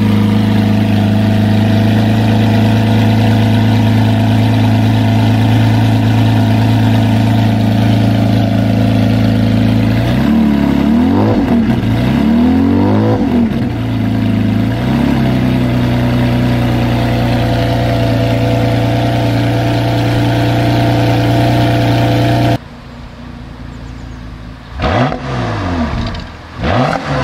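Bugatti EB110's quad-turbocharged 3.5-litre V12 idling steadily, blipped about four times in quick succession partway through. Near the end the sound drops suddenly to a quieter recording, and the engine revs twice more.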